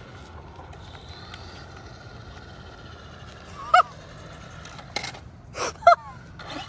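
A bird honking twice, two short calls about two seconds apart, with a couple of brief hissing bursts between them over low background noise.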